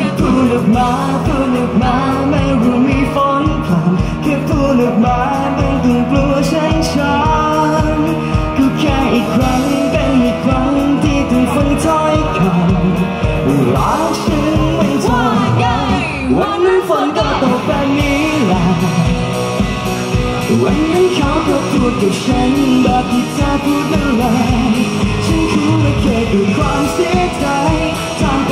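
Live pop-rock band playing a song, with singing over acoustic guitar and a steady drum beat.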